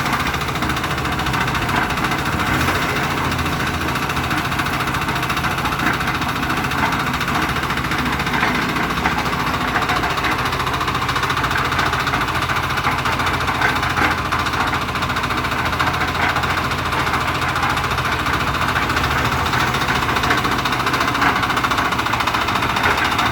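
The engine of a one-bagger concrete mixer running steadily.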